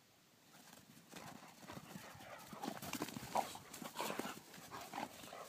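Footsteps crunching and scuffing on a thin layer of snow over grass, starting about a second in and going on unevenly.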